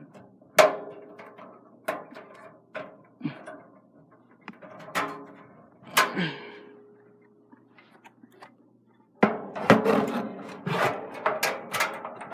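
Knocks and clicks of parts being handled and fitted into a PC case, scattered at first, then a dense run of clattering from about nine seconds in.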